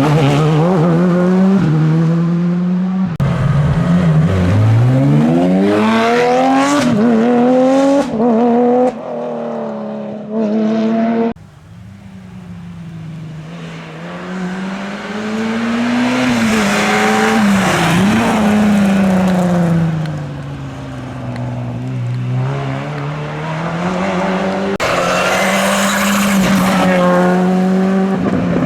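Rally car engines at full throttle, revving up and dropping back at each gear change. About a third of the way in the sound cuts to another car, heard approaching and passing, and it grows loud again near the end.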